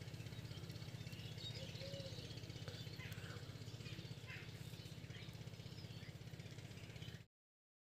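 Faint outdoor ambience: scattered bird chirps over a steady low rumble. It cuts off suddenly near the end.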